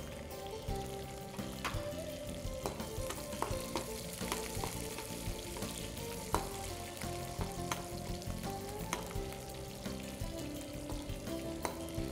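Onions, shallots and whole garlic cloves sizzling in hot oil in a non-stick frying pan. A spoon stirring them clicks against the pan now and then.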